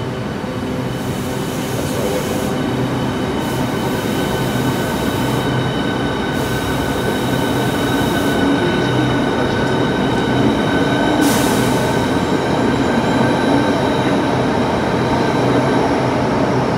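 Southeastern Class 395 Javelin electric train pulling out of the platform, running with a steady rumble and several steady whining tones, getting gradually louder as it gathers speed. A few short bursts of hiss come and go in the first two-thirds, the last about eleven seconds in.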